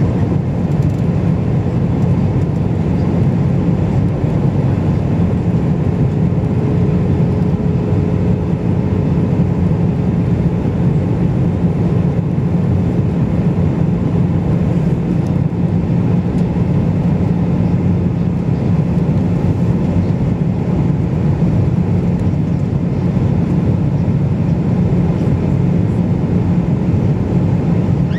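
Steady cabin noise of an Airbus airliner in cruise, heard from a window seat over the wing: a constant low rushing drone of the turbofan engines and airflow, unchanging in pitch and level.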